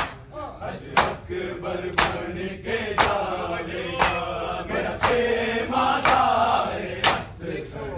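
Men's voices chanting a Muharram noha (lament) together. The congregation strikes their chests in unison in matam, one sharp slap about once a second, keeping time with the chant.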